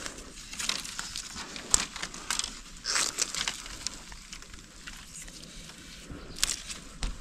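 Dry, burnt bamboo stems, twigs and leaves rustling and crackling as a hand pushes into the bamboo clump, with a few sharper snaps.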